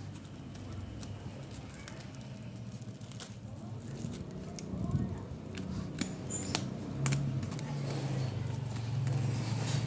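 Shipping package being opened by hand: scattered rustles and a few sharp clicks from cutting and tearing the packaging, over a low steady hum.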